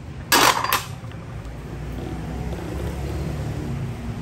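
A brief loud clatter of metal hand tools about half a second in, followed by the low steady rumble of a passing motor vehicle.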